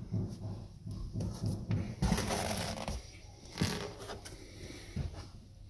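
Handling sounds of rustling and scraping. A burst of rustling comes about two seconds in, then a sharp knock, and a soft thud near the end.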